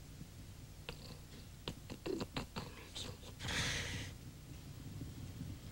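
Faint, laboured breathing of a dying man, with a few small clicks and one louder breath about three and a half seconds in, over a low steady hum.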